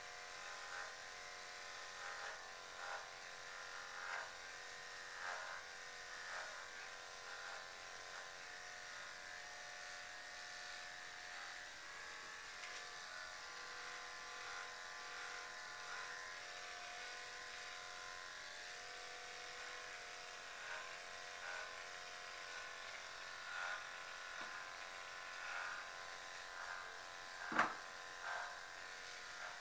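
Corded electric dog clippers running with a steady buzz. The buzz swells briefly about once a second. A single sharp click near the end is the loudest sound.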